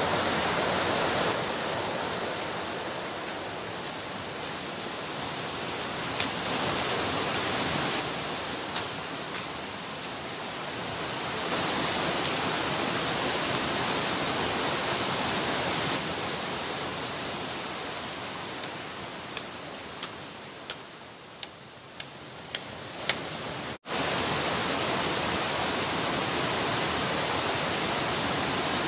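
Steady rushing of a waterfall and river rapids, its loudness stepping up and down abruptly several times. Near the end comes a quick run of about eight sharp taps, roughly two a second.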